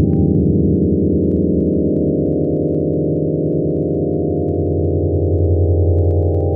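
Computer-generated sonification of a space telescope image: many steady low synthetic tones sounding together as a dense, sustained drone.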